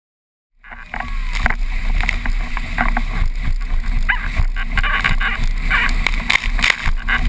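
Windsurf board planing fast over choppy water: the hull slaps on the chop and spray hisses, under heavy wind buffeting on the board-mounted camera's microphone. The sound starts abruptly about half a second in.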